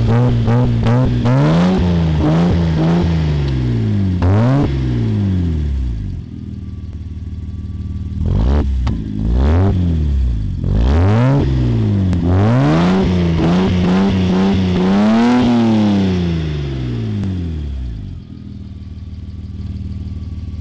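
Jaguar XJ40's straight-six engine revved repeatedly through a custom stainless-steel exhaust. It goes in quick blips and longer climbs in pitch that fall back to idle, with the longest and highest rev about two-thirds of the way in. It settles to idle near the end.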